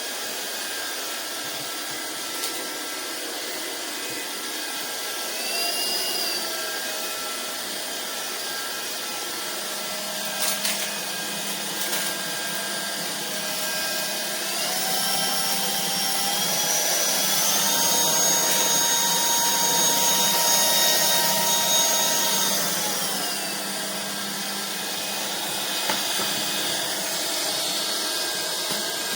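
Vistefly V15s Max cordless stick vacuum running with a steady motor whine. About halfway through its pitch steps up twice as the motor speeds up, holds, and then falls back to the lower speed near the end. A couple of brief clicks come shortly before the speed-up.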